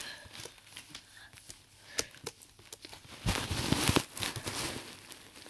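Computer keyboard keys clicking in scattered taps as code is typed, with a louder rushing noise lasting about a second just past the middle.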